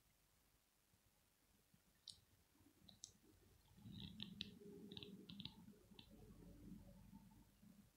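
Near silence with faint scattered clicks: single ones about two and three seconds in, then a quick cluster from about four to six seconds, joined by a soft low rustling that fades out near the end.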